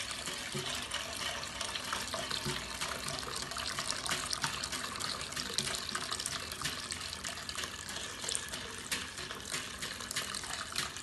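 A wire whisk beating a thin egg-and-milk batter in a glass bowl while milk is poured in slowly from a saucepan: steady liquid splashing and sloshing, with many light clicks of the whisk against the glass.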